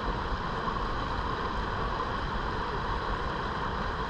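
River current rushing steadily over a shallow shoal right beside the kayak, a continuous even wash of moving water.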